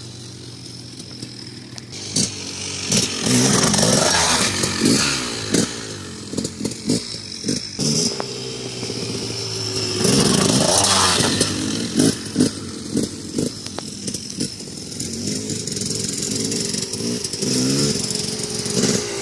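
Dirt bike engines revving up and down as riders accelerate across the field, the pitch rising and falling again and again with throttle blips and gear changes. It is loudest about three seconds in and again around ten seconds in, as an orange KTM 300 EXC two-stroke rides past close by.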